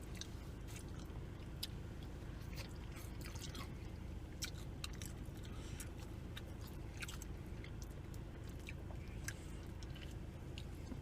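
Close-up chewing of food, with many small irregular clicks and crunches scattered throughout over a steady low hum.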